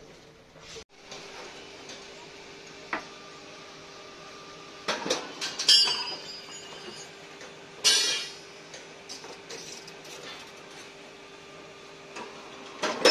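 Spartan rebar bending machine running with a steady motor hum while a bundle of steel reinforcing bars is bent on its turntable, with loud metallic clanks and ringing rattles of the bars, the loudest about five to six seconds in and about eight seconds in, and another near the end.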